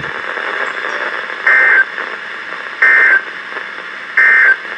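Three short Emergency Alert System (SAME) digital data bursts from NOAA Weather Radio, each a fraction of a second of rapid high warbling tones, about 1.3 seconds apart, over steady radio hiss. Sent right after the spoken warning, they are the end-of-message code that closes the alert.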